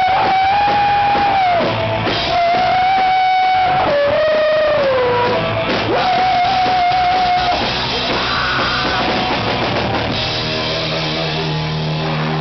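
Live rock band playing: distorted electric guitar and drum kit, with long held high notes, one sliding down midway. After about ten seconds the band settles into a sustained ringing chord.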